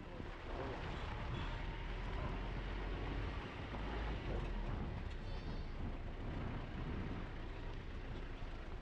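Motor vehicle on the move: steady engine and road rumble.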